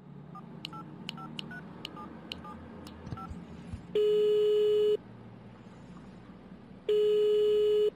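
Touch-tone phone dialing: about ten quick key beeps, each a pair of tones with a click. Then the caller hears the ringback tone twice, two steady one-second rings about three seconds apart, meaning the called line is ringing and not yet answered.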